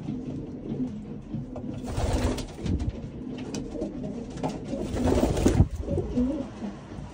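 Racing pigeons cooing, low and repeated, with two louder rustling bursts about two seconds in and around five seconds in.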